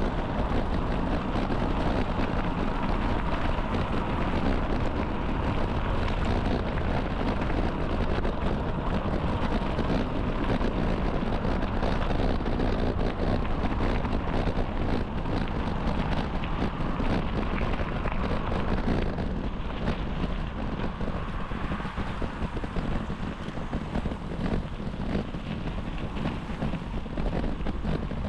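Steady wind rushing over the microphone of a moving bicycle, heaviest in the low end, easing slightly about two-thirds of the way through.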